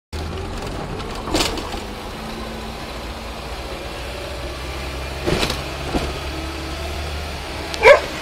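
Car engine running low and steady, heard from inside the cabin, with a few knocks. Near the end a dog beside the car gives one loud, sharp yelp.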